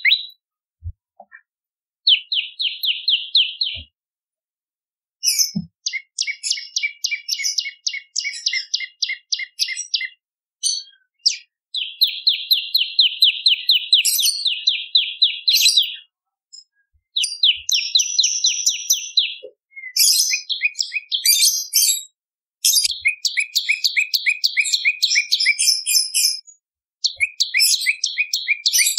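Prenjak lumut songbird calling in fast runs of sharp, repeated chirps, several a second. The runs come in bursts of a few seconds with short gaps between them, and higher notes are mixed in during the later bursts.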